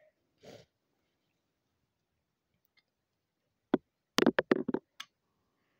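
Sharp plastic clicks of LEGO pieces being handled and snapped together: a single click, then a quick run of about seven clicks within a second, after a faint rustle near the start.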